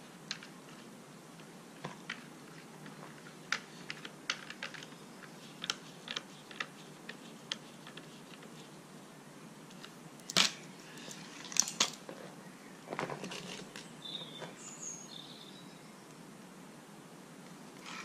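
Scattered light clicks and metal knocks of an air rifle's screw-on silencer being handled and fitted back onto the threaded barrel, with a few louder sharp clacks about ten to twelve seconds in.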